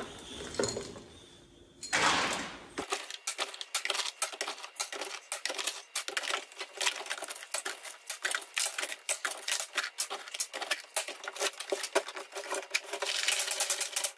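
Dense, rapid crackling and clicking of a car's sound deadening mat cracking as dry ice and alcohol freeze it loose from the floor pan, after a short rush of noise about two seconds in.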